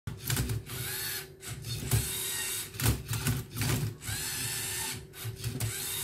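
LEGO Mindstorms EV3 robot's servo motors whirring in short stop-start bursts, their whine gliding up and down, with plastic clacking as the arm tips the Rubik's cube and the turntable turns it.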